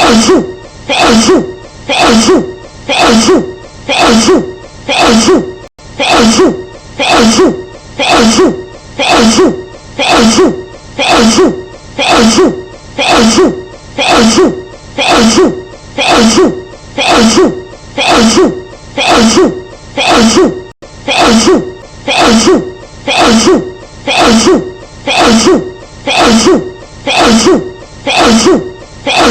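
A woman's sneeze, edited into a loop and repeated over and over in a steady rhythm, about once a second.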